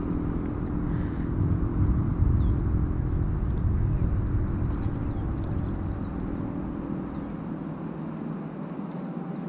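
Shimano Stradic 1000S spinning reel being cranked as a small fish is reeled in on ultralight tackle: a low rumbling whir with a faint hum that dies away about a second and a half before the end. A few short bird chirps sound over it.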